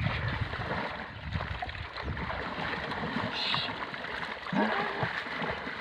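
Pond water sloshing and splashing, irregular and noisy, with a brief voice near the end.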